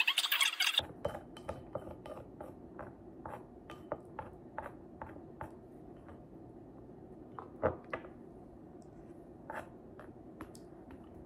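Light clinks and taps of cutlery on dishes, about two to three a second, with one louder knock about two-thirds of the way through, over a faint steady hum.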